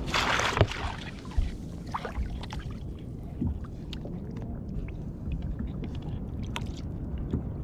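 A string of snapper splashes into the sea at the start, then water sloshes and laps against the side of the small boat, with small knocks.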